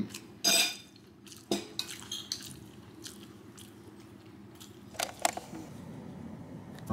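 A metal spoon clinking and scraping against a ceramic bowl while fried rice is eaten: a few short separate sounds, the loudest about half a second in, with quiet between.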